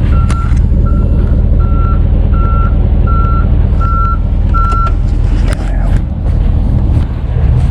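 Tow truck's reverse alarm beeping steadily, about one and a half beeps a second, over the loud running diesel rumble of the truck as it backs up; the beeping stops about five seconds in while the engine keeps running.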